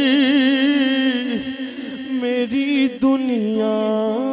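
A man singing an Urdu naat unaccompanied into a microphone, drawing out a wordless melisma. He holds a note with a quick vibrato for about a second and a half, runs through shorter turns, then holds a new note from about three seconds in.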